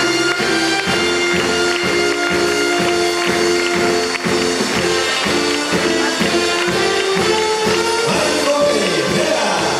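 Music with a steady, quick beat and held melody notes.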